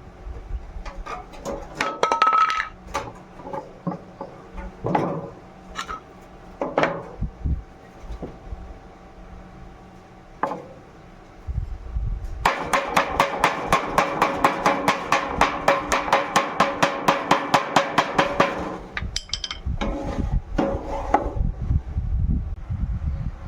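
Hand tools working a tin can: scattered knocks and clicks, then a fast, even run of metallic taps, about six a second, that lasts some six seconds with a ringing tone under it.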